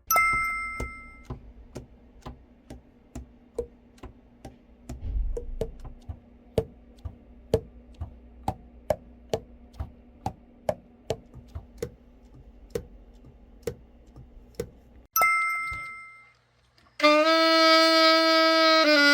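Light, irregular clicking, roughly two or three clicks a second, over a faint steady hum, with a short chime-like tone at the start and another about fifteen seconds in. About seventeen seconds in, the overhauled Selmer Reference 54 alto saxophone is played: a loud, held note that steps down in pitch at the end.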